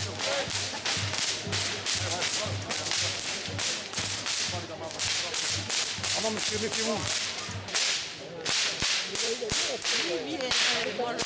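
A troupe of whip crackers cracking short whips together, many sharp cracks a second overlapping in an uneven volley, with a brief lull about eight seconds in.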